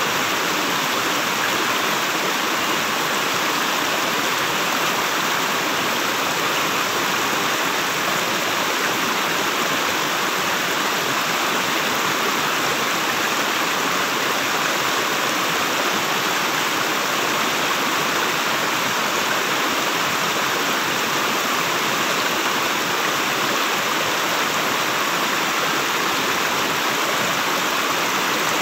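Shallow rocky stream rushing and splashing over boulders in small cascades, a steady, unchanging water sound.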